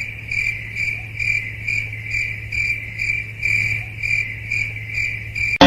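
Cricket chirping: a steady high-pitched trill pulsing about three times a second, over a faint low hum.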